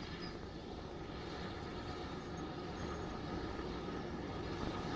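Great Western pannier tank steam locomotive running along the line with its coach, a steady rumbling noise that grows slowly louder.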